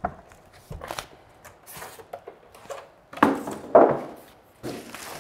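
Rustling of a monitor's protective foam-sheet wrap and light knocks of foam packing being handled. The loudest rustling comes about three to four seconds in.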